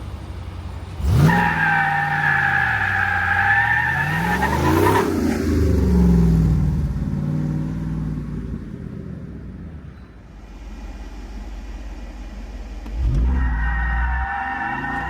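The 6.4-litre Hemi V8 of a 2023 Jeep Wrangler 392 accelerating hard past, its exhaust note rising and then dropping as it goes by, with a high steady whine over the engine, before fading away. Near the end a second hard acceleration starts suddenly.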